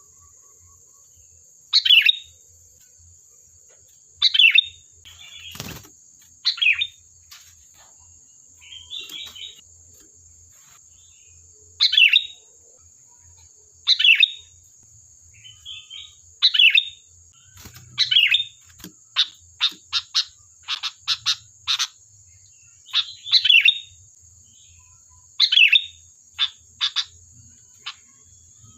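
Sooty-headed bulbul (kutilang) calling: short, loud chattering phrases repeated every two seconds or so, with a quick run of single sharp notes about two-thirds of the way through. A faint steady high tone runs underneath.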